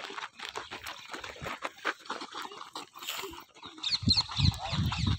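Quick light taps of footballs against feet and scuffing steps on a dirt pitch during a cone-dribbling drill. About four seconds in, a low rumble sets in.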